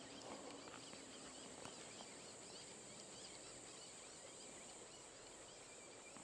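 Faint, steady rush of a shallow stream flowing, heard as an even hiss with a few faint clicks. The level is close to near silence.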